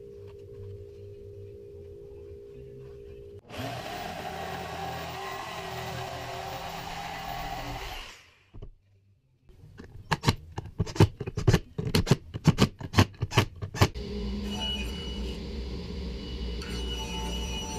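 Jigsaw cutting through plywood for about four seconds, then a rapid irregular run of sharp knocks, the loudest sounds here, and a steady hum near the end.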